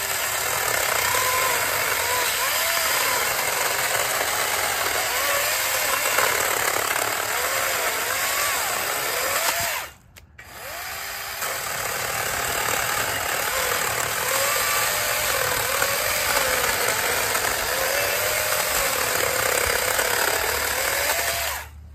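Wild Badger Power WB20VCS2AH 20-volt cordless 12-inch chainsaw cutting through a 4 to 5 inch piece of wood, its electric motor and chain running loud and steady, the pitch dipping and rising as the chain bites. The saw stops for a moment about halfway, then runs and cuts again until it stops near the end.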